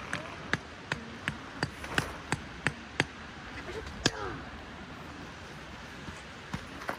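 Hammer driving tent stakes: a quick run of sharp knocks, about three a second, then a single louder knock about four seconds in.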